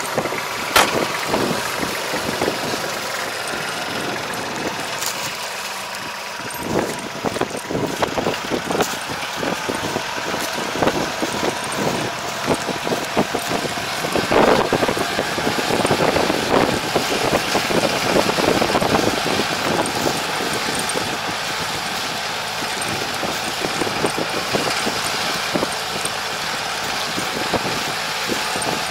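Diesel engine of a semi-crawler tractor running steadily as it drives off across a field, with a rear-mounted levee-building machine attached, and scattered clanks throughout.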